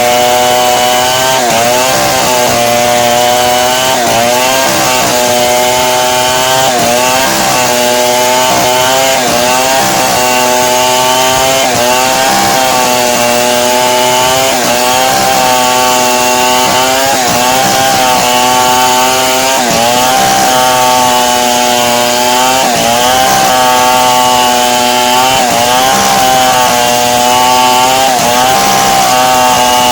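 Chainsaw running at full throttle while cutting lengthwise through timber to make beams and planks. The engine pitch dips briefly every second or two as the chain bites under load, then climbs back.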